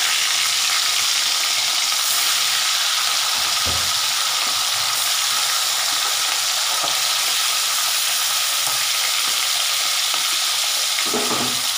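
Pieces of bhola fish, rubbed with salt and turmeric, frying in hot mustard oil in a kadai: a loud, steady sizzle, with one brief dull thud about four seconds in.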